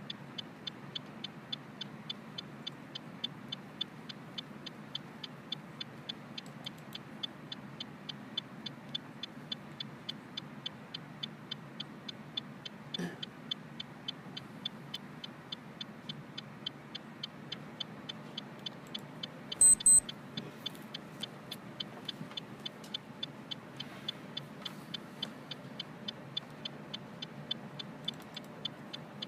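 Wall clock ticking steadily, a few ticks a second, over a low steady hum. Two short, high electronic beeps come a little past the middle and are the loudest sound.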